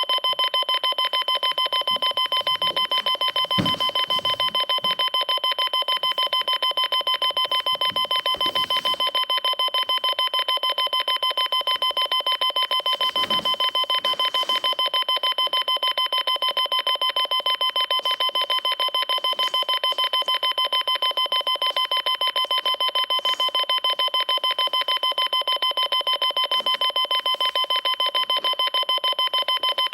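A rapid, unbroken string of identical electronic beeps, about six or seven a second, each at the same steady pitch.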